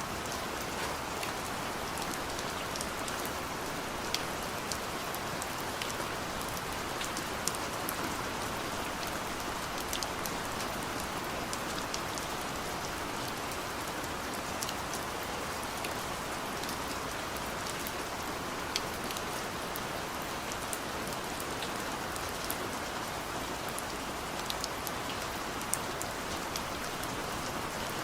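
Steady rain falling, a dense even hiss with many individual drops ticking sharply against nearby surfaces.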